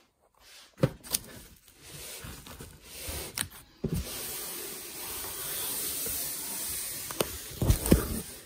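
Handling noise as a plastic-wrapped all-in-one computer is turned round on a table. There are scattered clicks and knocks, a steady rustling hiss of the plastic wrap through the middle, and a few heavier knocks near the end.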